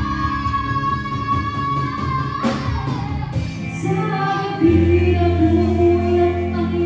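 Live band playing with a female lead singer over electric guitar, bass, keyboard and drums. A long held sung note breaks off abruptly about a third of the way in, and a different song takes over, with strong sustained bass notes from about two-thirds of the way in.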